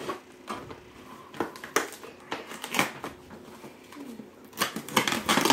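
Cardboard shipping packaging being handled and opened by hand: scattered rustles and knocks, with a denser run of rustling near the end.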